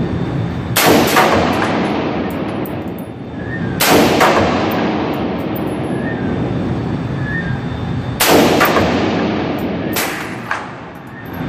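AR-15 rifle firing single shots at irregular intervals a few seconds apart, about four loud reports, each ringing out in the reverberant indoor range.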